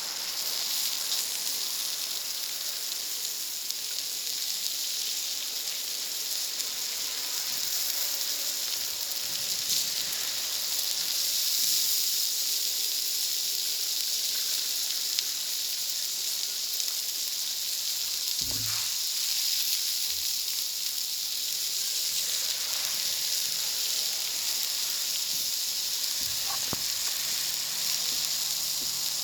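Food sizzling steadily on a plancha heated by a wood fire, an even high hiss with faint crackling. One brief low knock about two-thirds of the way through.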